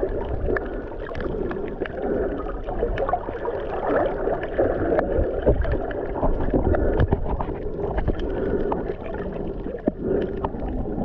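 Muffled underwater water noise recorded while snorkeling: sloshing and gurgling with many small clicks and crackles throughout.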